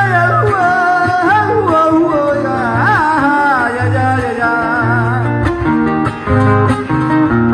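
Panamanian décima singing: a man's voice holds long, wavering, drawn-out notes through a PA over strummed guitars and a bass line that repeats low notes in a steady rhythm.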